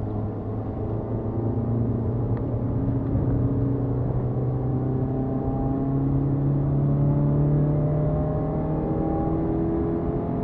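BMW E30 318is's 1.8-litre four-cylinder engine accelerating in one gear, its note rising steadily, heard from inside the cabin.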